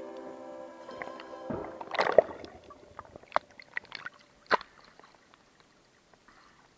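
Background music ending about a second and a half in, then a few scattered sharp clicks and knocks, the loudest about two seconds in, over faint water sloshing.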